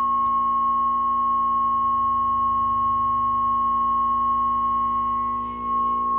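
A steady, unwavering electronic tone from the 1969 Zenith tube television's audio, with a brief dip in level near the end.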